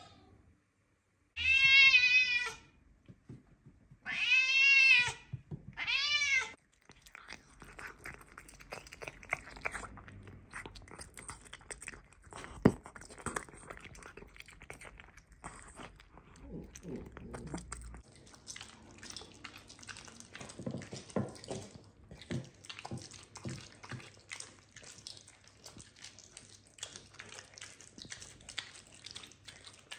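Bengal cat meowing three times in quick succession, each a loud, drawn-out call that rises and falls in pitch. It is followed by quieter, irregular clicking and chewing noises.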